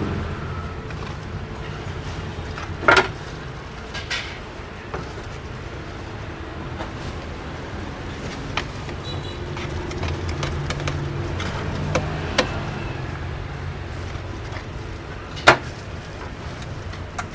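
Steady low rumble of street traffic, with a few sharp clicks and knocks on top, the loudest near the end and another about three seconds in.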